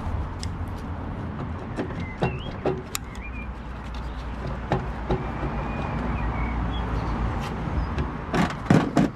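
Metal hand tools clicking and knocking against an MGA's front suspension while working loose a shock absorber that is stuck at the back, over a steady low rumble. A cluster of louder knocks comes near the end.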